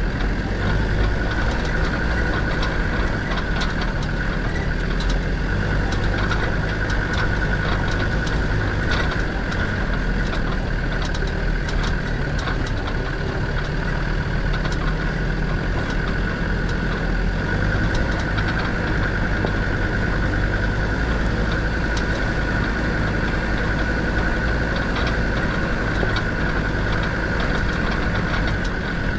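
Land Rover Defender 90's Td5 five-cylinder turbodiesel running steadily at low revs, with a constant whine over it and scattered small knocks and rattles.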